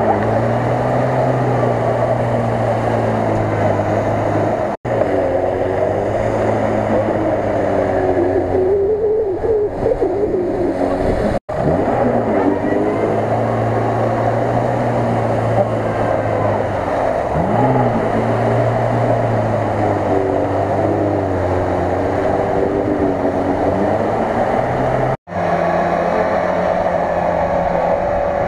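Lada Niva engine revving under load as the car works through deep mud and water, its pitch rising and falling again and again. The sound drops out for an instant three times.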